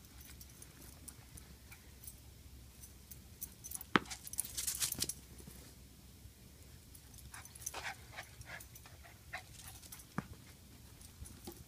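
Small dog moving about on a lawn: faint scattered clicks and rustles, with a sharp click about four seconds in followed by a second of louder rustling, and another click near the end.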